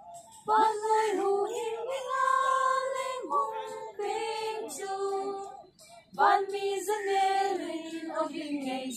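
A group of women singing a song together in long held notes, with a short pause for breath about six seconds in.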